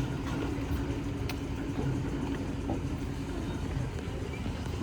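An engine running steadily, with an even low hum and rumble.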